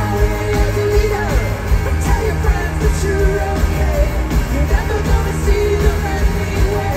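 Indie pop band playing live through an arena PA, heard from the seats: sung lead vocals over drums, electric guitars, keyboards and percussion.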